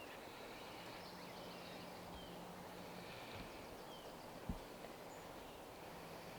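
Faint outdoor ambience with short, faint bird chirps now and then and a single sharp click about four and a half seconds in.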